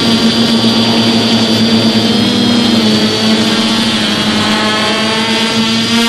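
DJI F450 quadcopter's four brushless motors and propellers in flight, heard loud and close from on board: a steady buzzing hum whose pitch wavers a little as the throttle changes.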